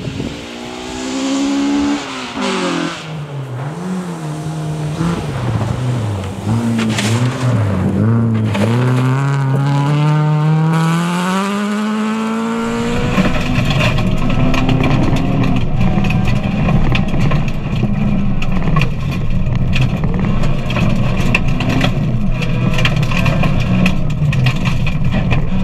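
Honda Civic rally car on a gravel stage, its engine revving up and dropping back again and again through gear changes as it approaches and passes. About halfway in the sound switches to inside the cabin: the engine running hard at high revs, with gravel clattering against the car.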